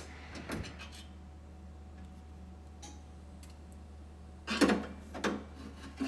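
A screwdriver working the top-cover screw out of a metal espresso machine panel: a click and a few small ticks, a quiet stretch, then sharp metallic scraping and clatter about four and a half seconds in. A faint steady low hum lies underneath.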